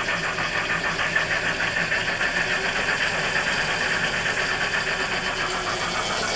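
Phoenix sound system playing simulated steam locomotive chuffing through a loudspeaker at raised volume, in a steady quick rhythm, with the locomotive's electric drive running at low speed.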